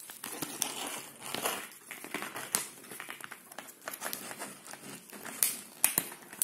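Stiff clear plastic blister pack crinkling and clicking as fingers pick at its edge and bend it, trying to pry it open. There are irregular crackles, with a louder one near the end.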